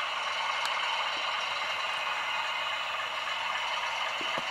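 OO gauge model trains running along the layout's track: a steady whirring rattle of wheels and motors, with a couple of light clicks near the end.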